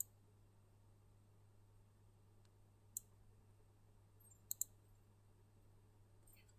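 Near silence with a steady low hum, broken by a few faint, sharp clicks of a computer keyboard and mouse: one at the start, one about three seconds in, a quick pair about a second later, and a faint one near the end.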